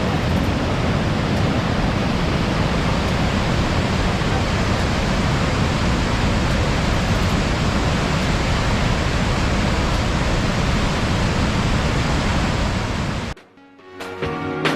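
Gullfoss waterfall's steady rush of falling water. It cuts off abruptly about 13 seconds in, and music with pitched notes and percussion starts just before the end.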